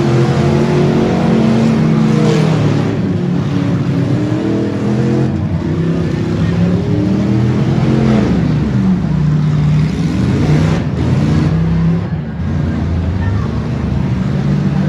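Several stock V8 demolition derby cars' engines running and revving together, their pitches rising and falling as the cars drive.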